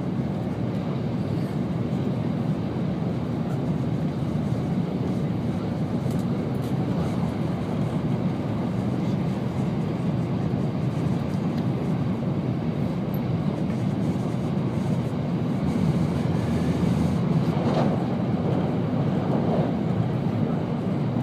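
Steady running noise of an N700-series Shinkansen at speed, heard inside the passenger car: a dense low rumble of wheels on rail and air rushing past, growing a little louder in the last few seconds.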